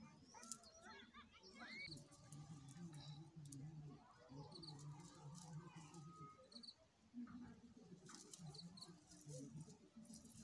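Faint rustling and crackling of leafy plants and dry stalks being pulled up by hand, with a short high chirp coming back every second or two.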